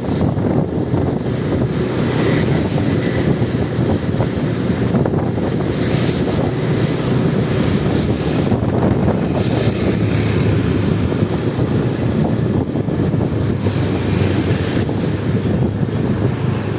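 Motor scooter on the move: a small engine running steadily under a rush of wind on the microphone.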